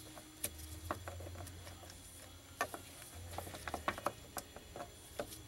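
Hand tools clicking and tapping on the metal of an automatic transmission's pressure regulator and its bolts, in irregular light knocks with a quicker run of clicks a little past halfway.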